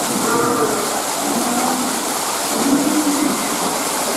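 Indoor artificial waterfall: thin streams of water splashing steadily onto rocks and into a pool, with a few brief voices over it.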